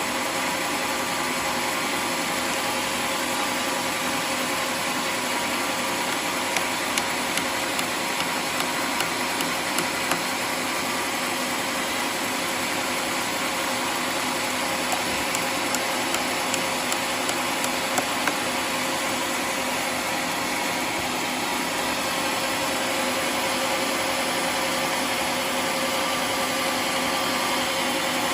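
Homemade sawmill running steadily as it saws waru wood, a continuous machine noise with a steady hum. Two runs of quick sharp clicks come through, one about a third of the way in and one a little after halfway.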